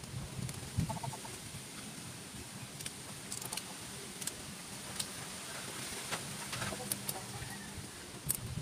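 Faint, scattered clicks and scrapes of a small knife cutting into the husk of a sprouted coconut.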